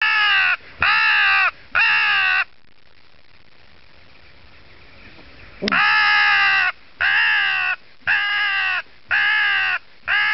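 Wooden mouth-blown crow call imitating a carrion crow's caw to lure crows and jackdaws. It gives three harsh caws, then a pause of about three seconds, then a steady run of caws about one a second.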